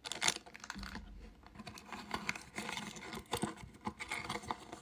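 Plastic packaging being handled and opened by hand: irregular crinkling and rustling with many small clicks and taps.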